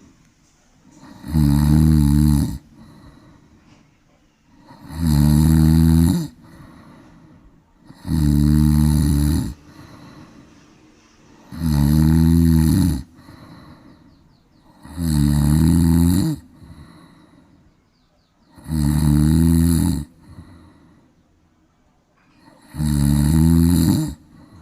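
A cat snoring: seven loud snores, one about every three and a half seconds, each lasting about a second, with quiet breathing between them.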